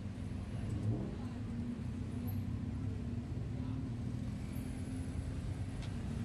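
Road traffic: a steady low rumble of car engines.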